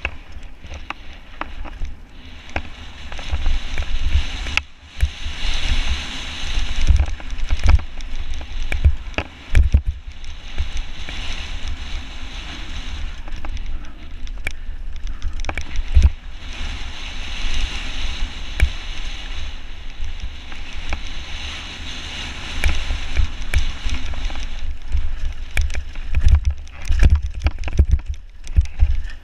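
Mountain bike riding fast down a loose, rocky dirt trail: tyres crunching and hissing over gravel, wind rumble on the microphone, and frequent sharp knocks and rattles as the bike hits rocks.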